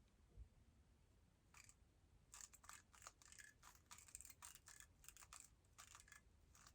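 Faint, rapid clicking of a MoYu WRM 2020 magnetic speed cube's plastic layers being turned during a solve, coming in quick bursts of several turns with short pauses between them.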